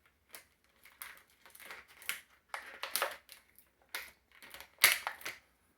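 Plastic action-figure packaging crinkling and crackling in irregular bursts as it is handled and opened, with the sharpest crackle a little before the end.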